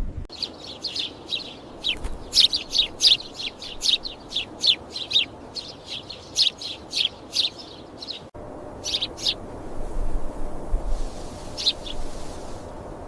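Small birds chirping: a quick series of short, high chirps, each sliding downward, several a second, for about eight seconds, then a few scattered chirps.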